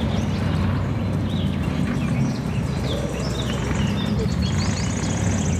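Main battle tank's engine and tracks giving a steady low rumble as it drives over a dirt course, with short high chirps scattered over it.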